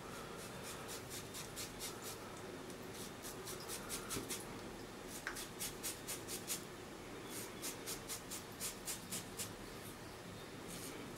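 Shavette straight razor scraping through short stubble on a scalp coated with shaving gel, in quick short strokes of about three a second, in runs broken by brief pauses.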